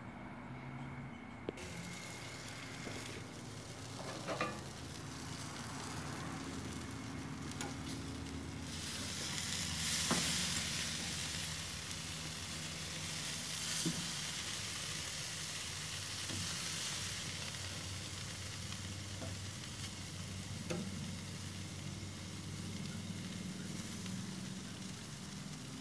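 Burgers and ribs sizzling on a barbecue grill. The sizzle grows louder about a third of the way in, with a few light clicks of a metal fork against the meat and grate.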